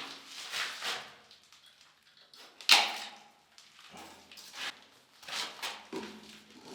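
A string of scrapes and knocks from objects being handled, with one sharp, loud knock about three seconds in.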